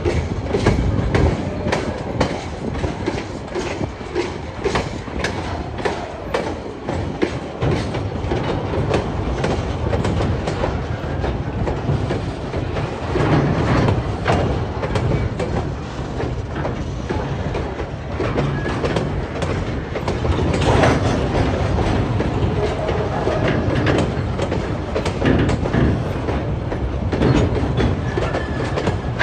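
Empty log wagons of a freight train rolling past, wheels clicking and clattering over rail joints and points over a steady rumble.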